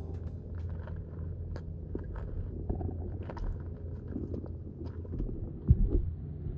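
Water heard through an underwater camera in a pool: a steady low rumble with scattered, irregular small clicks and ticks, and one heavier low thump near the end.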